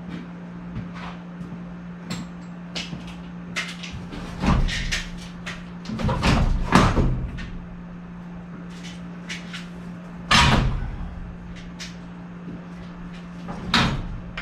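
Sheet-metal clunks and knocks as a heavy evaporator coil is handled and set into the furnace cabinet, several scattered bangs with the loudest at about four and a half seconds, six to seven seconds, ten seconds and near the end. A steady low hum runs underneath.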